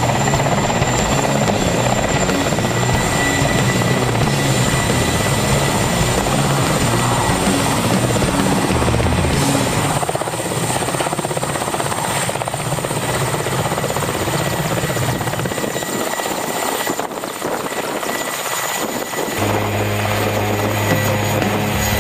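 Mil Mi-8-family twin-turbine helicopter coming in low and landing close by, its main rotor and turbines running loud and steady.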